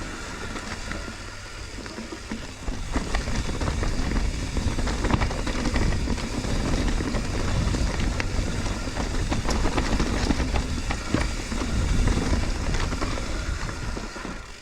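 Mountain bike riding a rough trail: wind rumble on the camera microphone, with tyres rolling over rock and roots and the bike rattling and knocking. It gets louder about three seconds in.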